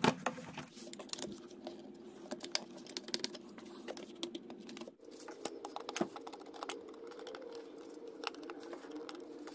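Scattered light clicks and taps of plastic and metal parts as the engine's rubber intake air tube is pushed into place by hand and its hose clamp is tightened with a screwdriver, over a faint steady hum.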